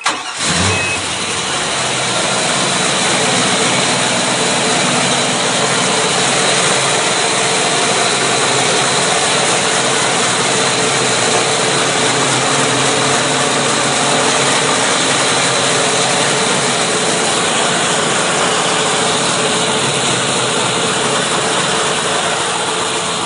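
Port Mercury Racing 575 supercharged V8 marine engine starting about half a second in, then running steadily at idle, loud and close from the open engine compartment.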